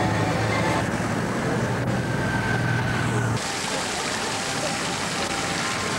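Motorcycle engines running with a steady low hum; about three and a half seconds in it cuts off abruptly to the even splashing of a fountain's water.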